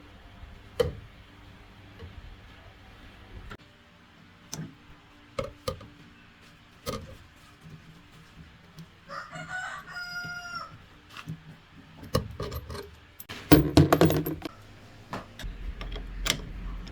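A rooster crowing once, about nine seconds in, over scattered sharp metallic clinks and taps. Near the end comes a short burst of louder clattering knocks, the loudest part.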